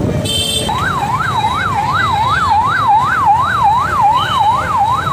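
Police car's electronic siren in a fast yelp, its pitch sweeping up and down about two and a half times a second, starting under a second in, over street traffic noise. A short horn honk sounds just before the siren starts.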